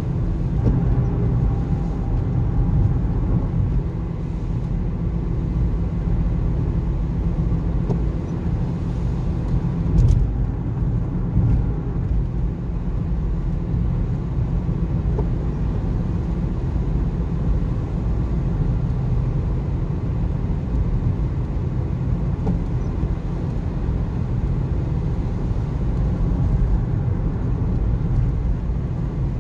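Steady low rumble of a car's tyre, road and engine noise heard inside the cabin at motorway speed, with one brief knock about ten seconds in.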